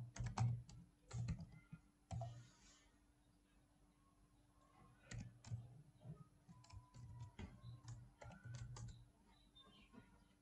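Computer keyboard typing, faint keystroke clicks in short bursts: a flurry at the start, a pause of a couple of seconds, then more bursts from about five seconds in.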